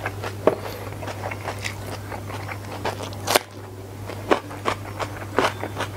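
Close-miked chewing of a full mouthful of food: wet mouth clicks and crunches, with one sharp crunch a little past three seconds in.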